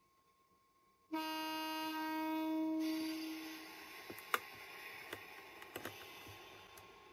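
A train horn sounds once for about two seconds, then gives way to a fading running noise with a few sharp clicks.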